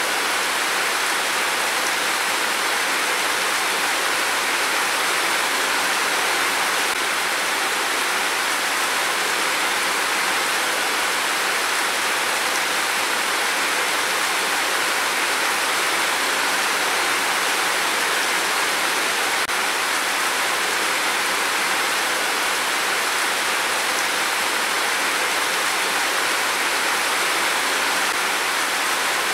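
Heavy rain pouring down as a steady, even hiss with no thunder.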